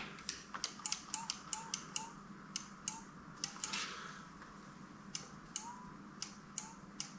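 Light metallic clicking, several clicks a second and thinning out after about four seconds, from snugging up a replacement front brake lever on a Honda CB650R with a 10 mm ratchet and working the lever by hand.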